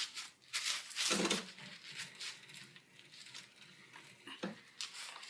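Small hand saw cutting into a golf ball's rubber core, a few irregular scraping strokes.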